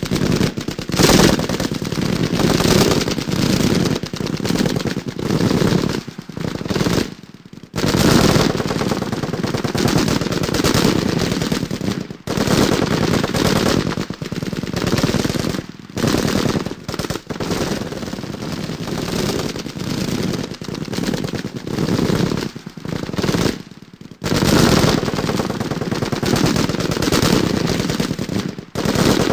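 Machine-gun fire in long, rapid automatic bursts, broken by several brief pauses.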